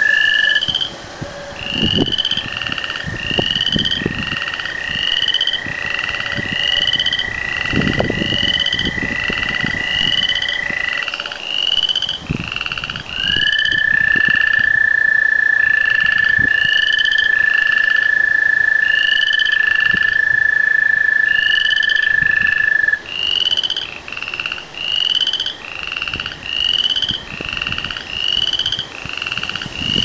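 Chorus of tree frogs: many short rising peeps, overlapping and repeating about twice a second, over a long steady high trill that breaks off briefly about eleven seconds in and stops about two-thirds of the way through.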